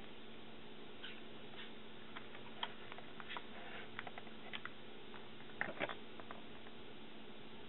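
Clear plastic food tray clicking and crackling as it is handled, scattered light clicks with a louder cluster of crackles about three-quarters through, over a faint steady hum.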